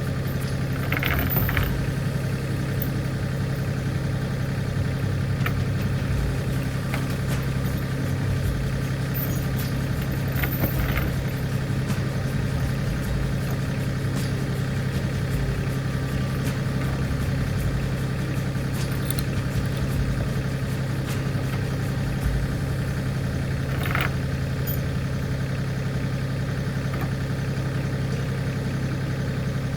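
Tractor engine running steadily at idle, with a few short sharp cracks or knocks about a second in, near the middle, and about three quarters of the way through.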